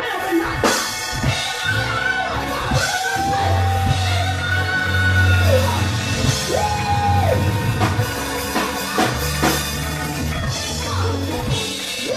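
Live gospel church music with drums and a heavy bass line, while a voice holds long high notes over it twice.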